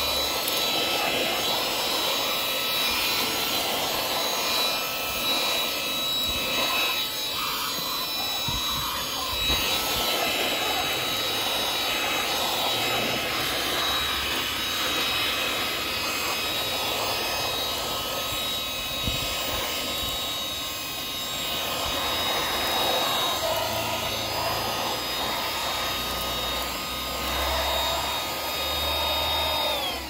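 eufy HomeVac H11 cordless handheld vacuum running with a steady high whine while its nozzle scrapes and rubs over a car floor mat, with a few clicks of grit. Near the end it is switched off and the whine falls away.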